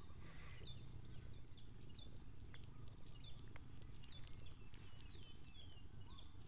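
Birds chirping in the background: many short, high, hooked chirps repeating every half second or so, with a brief buzzy trill twice, over a steady low rumble.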